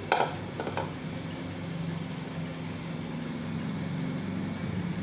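A knock of metal on the aluminium pot as the onions go in, another lighter one, then a steady hiss of chopped onions frying in hot oil over a low hum.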